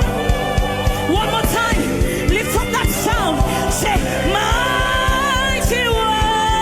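Gospel worship music: singing voices over a band with a steady drum beat.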